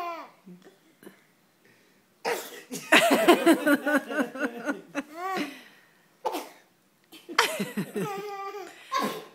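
Repeated fake sneezes, a voice imitating a person's sneeze again and again, with laughter mixed in. There are several bursts with short pauses between them.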